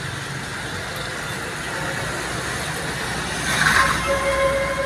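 Steady roadside traffic noise, with a short loud rush of noise about three and a half seconds in, followed by a vehicle horn sounding one steady tone that starts about four seconds in and holds to the end.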